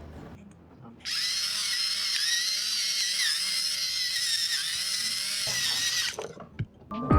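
A small electric motor whining with a slightly wavering pitch, starting about a second in and cutting off about six seconds in.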